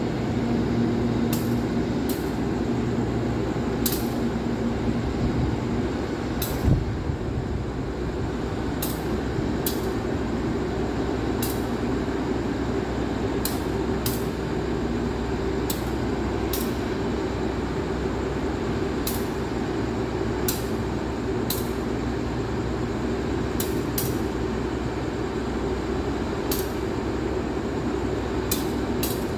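Passenger train departing, its last carriages rolling past and moving away over a steady low rumble. Sharp clicks come every second or two, and there is a single thump about seven seconds in.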